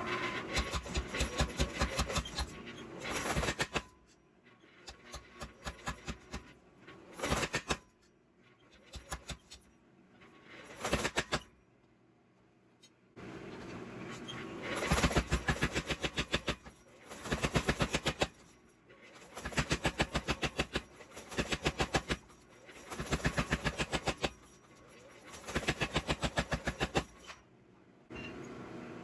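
Rapid, evenly spaced hammer blows on hot steel, many a second, coming in runs of one to three seconds with short pauses between them.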